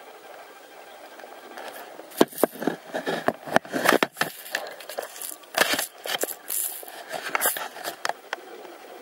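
A diver's underwater camera being moved about: a run of irregular clicks, knocks and short rushing noises from about two seconds in until near the end, over a steady low hiss.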